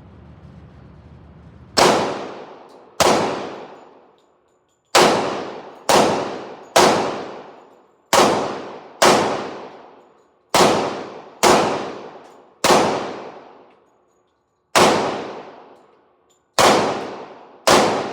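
Glock 29 10 mm pistol firing 180-grain rounds from a 15-round magazine: thirteen shots at an uneven pace of roughly one a second, each followed by a ringing echo. A few short pauses break up the string.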